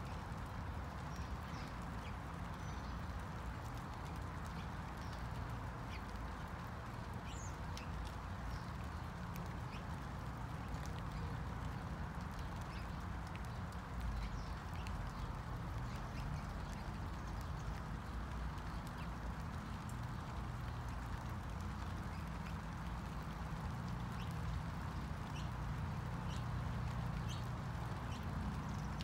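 Steady rain falling, with scattered drops ticking close by over a low, steady rumble.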